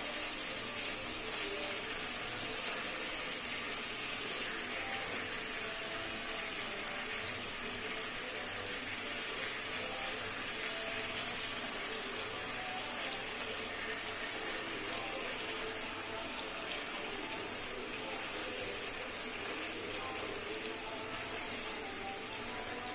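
Black pomfret pieces frying in hot oil in a wok: a steady, even sizzle.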